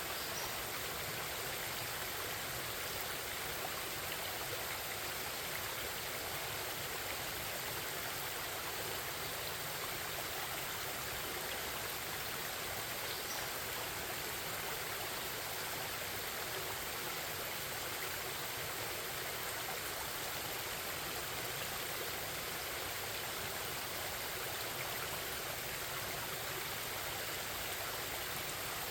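Forest stream babbling steadily: a constant, even rush of flowing water.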